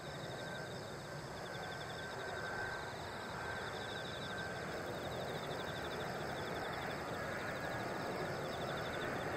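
Boeing 777-200ER jet on final approach with its landing gear down and its GE90 engines at low approach power, a steady rushing jet noise growing slowly louder as it nears.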